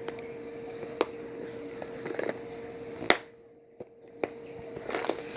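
Sharp plastic clicks and light rustling from tackle and lure packs being handled, the loudest click about three seconds in, over a steady low hum.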